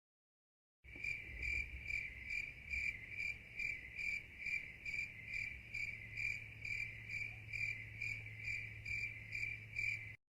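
Cricket chirping sound effect: a steady, high chirp pulsing evenly about twice a second, starting and stopping abruptly.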